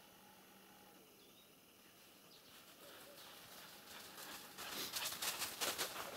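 Footsteps crunching and rustling in snow, quiet at first, then quickening and growing louder from about halfway through.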